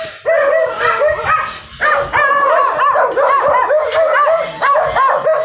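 Dogs barking and yipping in a rapid string of short barks, about three a second, with a brief pause a little under two seconds in.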